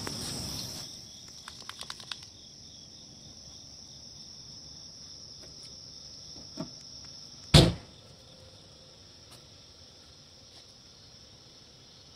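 Night insects, crickets or katydids, trilling steadily in a high-pitched, pulsing chorus. A few sharp clicks come in the first two seconds, and one loud thump about seven and a half seconds in.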